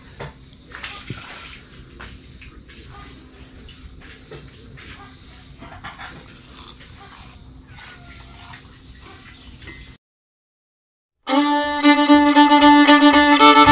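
Crickets chirring steadily, with a few faint clicks and knocks from a bowl being handled. About ten seconds in the sound cuts to silence, then much louder instrumental music starts a second later.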